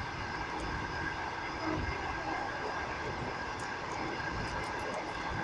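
Passenger train carriage running along the rails, heard from inside: a steady rumble and rail noise with a faint, steady high whine.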